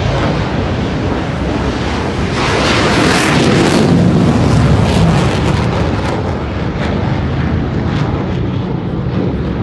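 Military fighter jet taking off: a loud, steady jet engine noise that swells to its loudest about three to four seconds in, then eases off.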